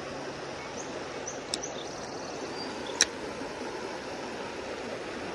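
Creek water rushing steadily through a small spillway channel, with two sharp clicks, about a second and a half apart, the second one louder.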